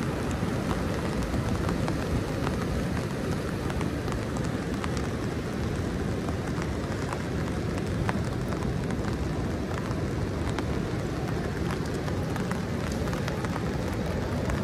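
Rain crackling on an umbrella: many scattered sharp ticks of drops hitting the fabric, over a steady low rush of noise.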